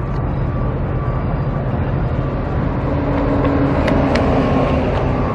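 A large engine running steadily close by as a low rumble, with an extra steady tone joining about three seconds in and a couple of sharp clicks about four seconds in.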